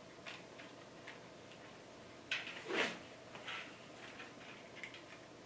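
Kato N scale train cars being set on the track and coupled by hand: light plastic clicks and taps, with two louder clacks about halfway through.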